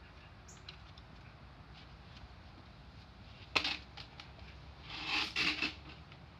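A leaf rake being handled on a concrete patio: one sharp knock about three and a half seconds in, then a short scraping, rustling burst a second or so later as the rake head goes across the concrete.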